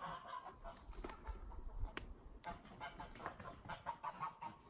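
Chickens clucking faintly, with one sharp click about two seconds in.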